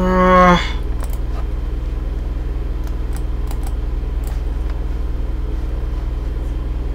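Steady low electrical hum with a handful of faint computer mouse clicks, under a brief hummed 'mm' from a man's voice at the very start.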